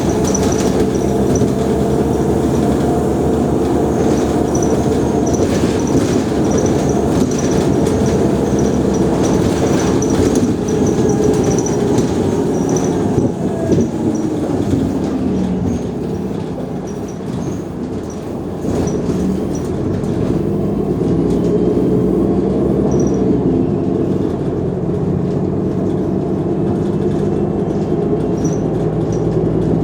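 Engine of a Mercedes-Benz O345 Conecto G articulated city bus running under way. Its pitch sags and the sound eases off about halfway through, then picks up again as the bus pulls on.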